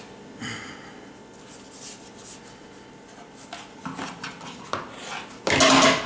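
Quiet rustling of a cloth and handling of bread dough with a few faint knocks. Near the end comes a loud half-second clatter with a brief metallic ring, as a bowl is turned over onto an aluminium pot.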